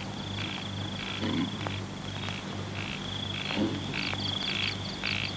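Night ambience of frogs croaking in a steady rhythm, about twice a second, with insects chirping in repeated pulses over it.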